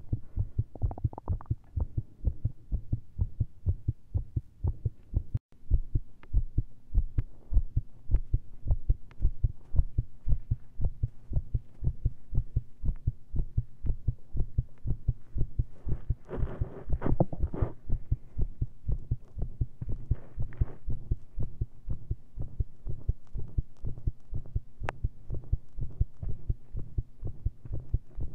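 Human heartbeat heard through a stethoscope, beating fast and irregularly with skipped beats (PVCs) after heavy caffeine and straining. The sound drops out briefly about five seconds in, and a short burst of noise comes through about seventeen seconds in.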